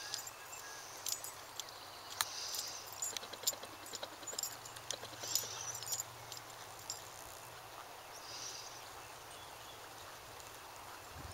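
Hoofbeats of a McCurdy Plantation Horse, a gaited breed, moving briskly over dry pasture ground: a run of irregular sharp footfalls, a few of them louder, with outdoor ambience behind.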